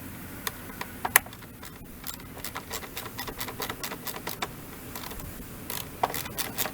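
Hand ratchet clicking in short runs with a few sharper metal clicks, as a 10mm bolt on the engine cover is worked loose.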